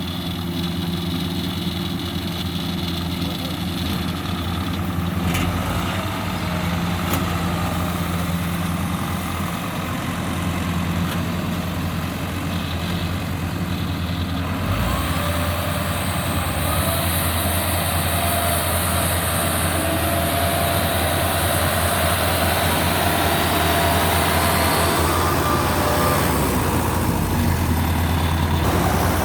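Rice combine harvester's engine running steadily, a continuous low drone that grows slightly louder over the second half.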